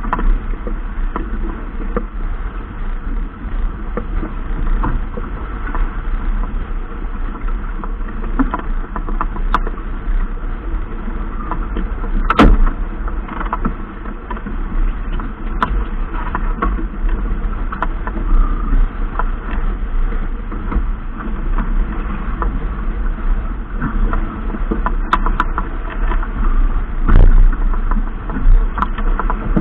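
Wind and water noise aboard a racing sailboat under way: a steady rush with a deep rumble, broken by scattered knocks and clicks, the loudest about twelve seconds in and again near the end.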